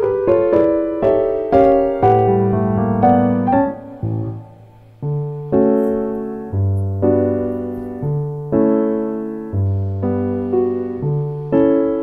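Background piano music. A quick run of notes gives way to a brief lull about four seconds in, then slow chords follow at about one a second.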